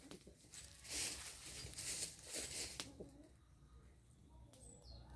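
Birds, with bursts of rustling noise from about one to three seconds in.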